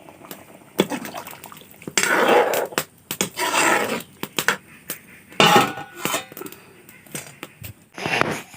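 Cooking at a pot: a utensil clinking and scraping against the pot, with two short splashing, hissing stretches of water in the pan.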